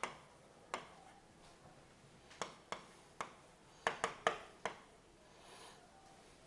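A stylus tapping and clicking on a writing surface during handwriting: about nine sharp, irregular clicks, bunched in the first five seconds.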